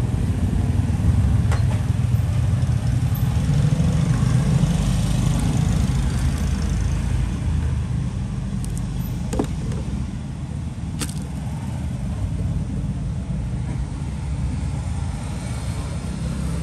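Steady low rumble of road traffic, motorbikes and cars, easing slightly partway through, with two short sharp clicks about nine and eleven seconds in.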